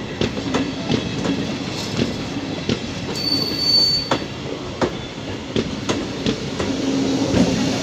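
Passenger train coaches rolling slowly past close by, wheels clacking unevenly over the rail joints. A brief high wheel squeal comes about three seconds in.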